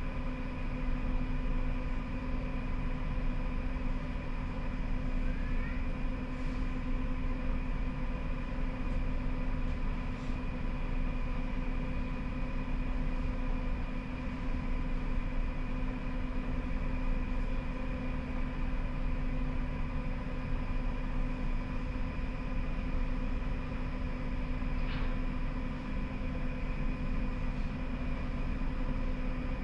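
Siemens Combino tram heard from the driver's cab: a steady electrical hum of several fixed tones over a low running rumble.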